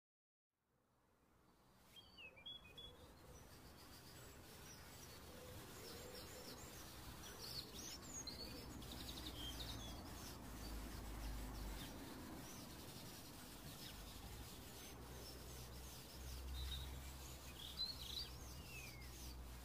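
Faint outdoor ambience fading in after a second of silence: birds chirping now and then over a low rumble.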